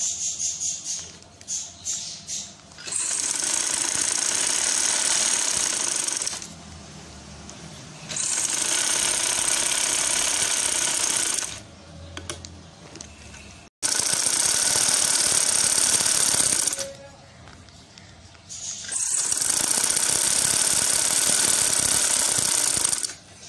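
Sewing machine stitching through fabric backed with newspaper, running in four steady runs of three to four seconds each, stopping between runs.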